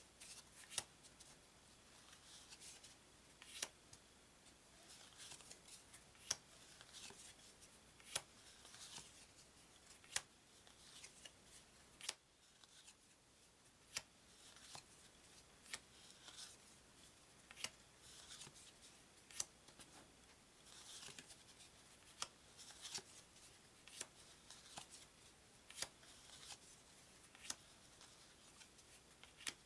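Stiff game cards being handled one at a time from a deck, each move giving a short, soft click or snap every second or two, with little else between them.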